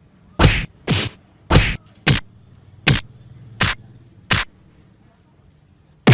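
Punch sound effects: seven sharp whacks about half a second to three-quarters of a second apart, then a pause and one more hit at the very end.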